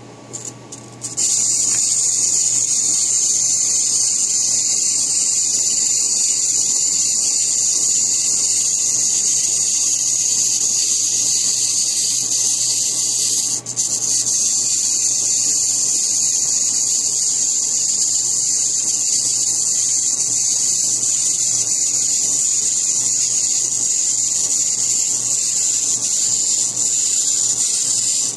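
Robot-shaped pencil sharpener shaving a pencil, a steady rasping grind that starts about a second in, breaks off briefly about halfway through, then carries on.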